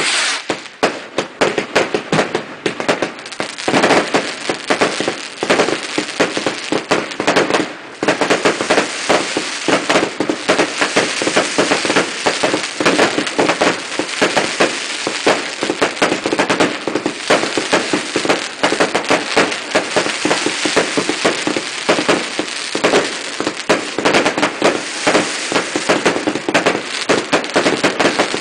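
Fireworks going off in a dense, unbroken run of rapid bangs and crackling, with a brief lull about eight seconds in.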